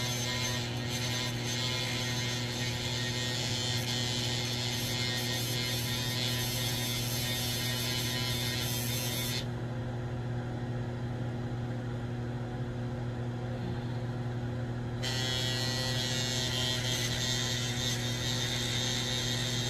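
Small handheld electric nail file running with a steady motor hum as its emery bit files down an acrylic nail. A higher scratchy hiss from the bit on the nail drops out a little under halfway through and returns about three quarters of the way in, while the motor runs on.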